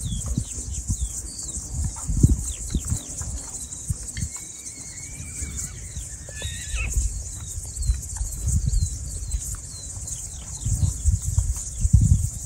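A herd of horses running over grassy ground, with one horse giving a long whinny about four seconds in, over hoofbeats and a steady high insect hum.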